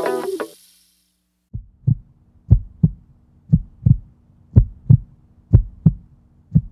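Guitar music cuts off about half a second in. After a second of silence comes a heartbeat sound effect: low double thumps, lub-dub, about one pair a second, over a faint steady hum.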